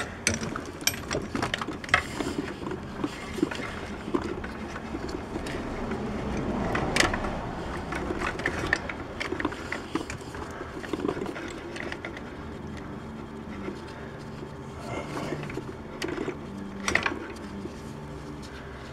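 Scattered clicks, rattles and knocks of gloved hands and tools refitting an ignition coil pack onto the valve cover of a 5.3-litre V8, with a sharper knock about seven seconds in and another near the end. A low steady hum sits underneath in the second half.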